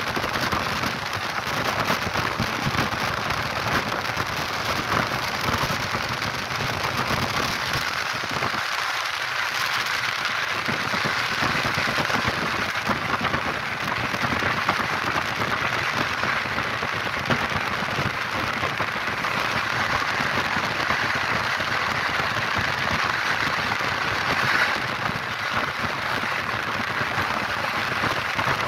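Passenger train running, heard from inside the carriage: a steady rush of wheel and wind noise, its low rumble thinning briefly about nine seconds in.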